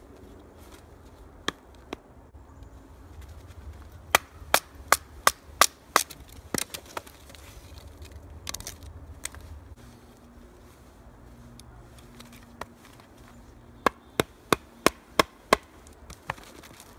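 Batoning: a wooden baton striking the spine of a JaktKit KNV2 fixed-blade knife to drive it through deadwood. The sharp knocks come in two quick runs of about six blows each, roughly two a second, with a few single knocks before and between them.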